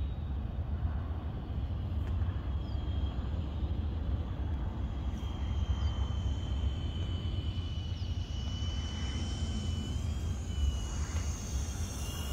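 Electric motors and propellers of an FMS F7F Tigercat twin-engine RC model plane on a low approach: a thin steady whine comes in a few seconds in and grows louder as the plane nears. Under it is a steady low rumble of wind on the microphone.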